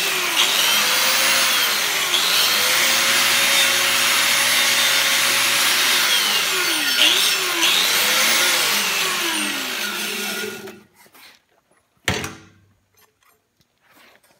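Angle grinder with a wire wheel brushing slag off a stick-weld bead on a steel test plate. The motor's whine sags in pitch each time the wheel is pressed into the weld and then recovers. It runs for about ten seconds and then winds down, followed by a single sharp knock.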